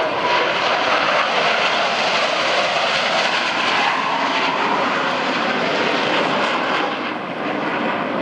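Four Blue Angels F/A-18 Hornet jets flying low in diamond formation: a loud, steady jet roar that eases off slightly near the end.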